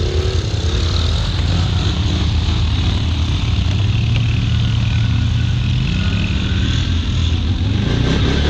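ATV engine running under load, its pitch rising and falling as it is revved.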